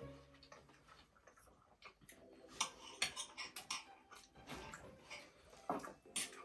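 Faint, irregular clicks of cutlery on plates during a meal, bunched about two and a half to four seconds in and again near the end.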